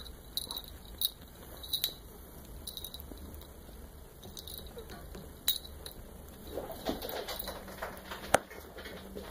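Kittens scuffling and wrestling on a crumpled synthetic cloth: soft rustling with scattered sharp little clicks, the sharpest one near the end.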